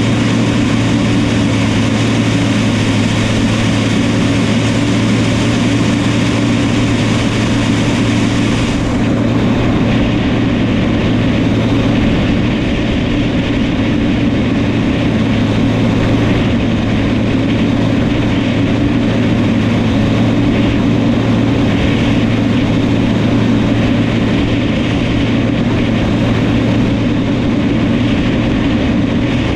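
Diesel engine of a New Holland crawler dozer running steadily at working speed. A high hiss over it drops away about nine seconds in.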